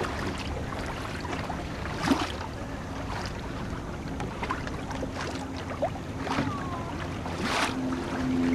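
Water splashing and slapping against the hull of a small sailing dinghy beating upwind, with wind on the microphone. Two louder splashes stand out, about two seconds in and near the end, and a faint low hum comes up near the end.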